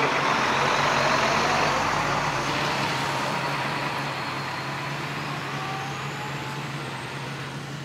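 Fire truck's engine running as the truck pulls away and drives off, a steady engine drone that slowly fades as it gets farther away.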